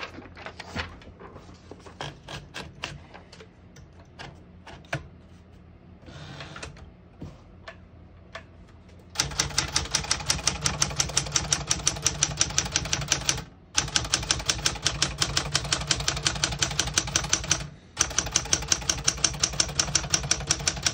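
Smith-Corona Sterling manual portable typewriter: scattered clicks and knocks from the mechanism at first, then about nine seconds in, a fast, even run of typebar strikes as keys are typed, with two brief breaks.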